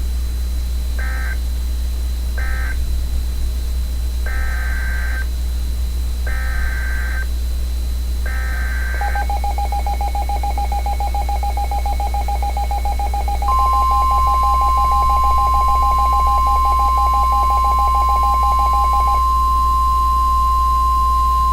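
NOAA Weather Radio emergency alert (SAME) data bursts: three short warbling bursts that end one message, then three longer header bursts that announce the next alert. About nine seconds in, a rapidly pulsing alert tone begins. About four seconds later the steady 1050 Hz warning alarm tone joins and holds, signalling that a warning is about to be read. A low steady hum runs underneath.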